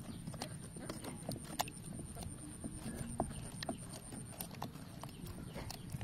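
Metal spoon stirring a raw egg mixture inside a hollowed watermelon shell. It makes irregular clicks and knocks against the rind, with wet stirring of the liquid.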